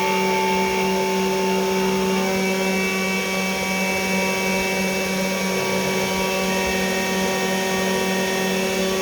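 CNC 3018 desktop router's spindle motor running steadily while milling brass: a constant motor whine with a low steady hum, and a few higher tones that come and go as the machine works.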